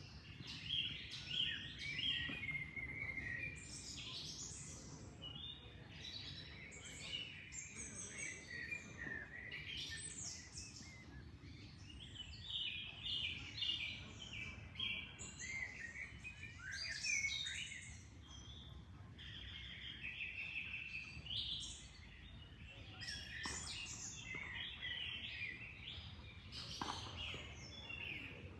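Several birds chirping and singing in overlapping, continuous calls, over a steady low rush of flowing water.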